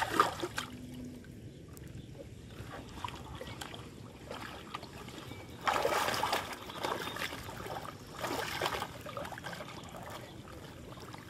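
Water splashing and sloshing in a few short bursts, the loudest about six seconds in, with faint trickling and small knocks between.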